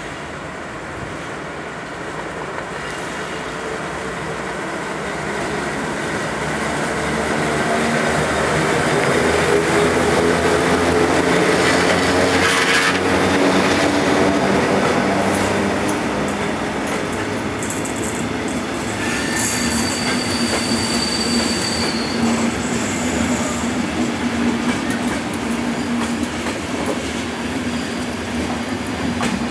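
Former NS class 1200 electric locomotive 1251 hauling a train of sleeping and couchette coaches slowly out past the platform, growing louder with a rising whine as the locomotive passes, loudest about ten seconds in. The coaches then roll by with wheels clicking over rail joints and a high wheel squeal on the curved track in the second half.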